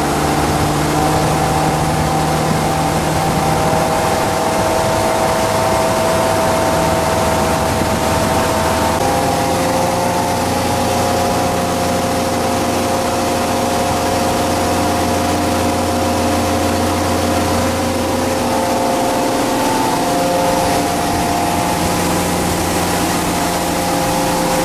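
1973 Caravelle deep-V fishing boat's engine running steadily under way, heard from inside the wheelhouse cabin over the wash of water on the hull. The engine note shifts pitch slightly a few times.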